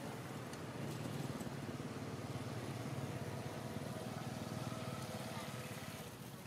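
A motor vehicle engine running steadily as a low hum, fading near the end.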